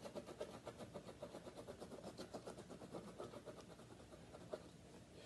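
A crayon scribbling back and forth on paper backed by a hardboard, a faint, rapid scratching of about eight strokes a second that thins out near the end.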